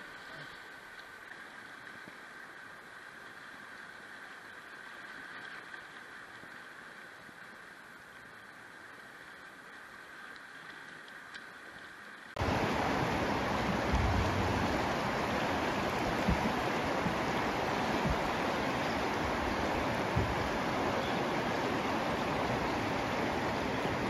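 Whitewater rapids rushing. A steady, fairly quiet wash of river water for the first half, then, about halfway in, a sudden switch to a much louder, continuous rush of water.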